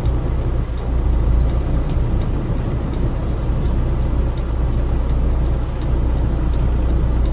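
Semi truck's diesel engine running steadily, heard from inside the cab as a constant low hum.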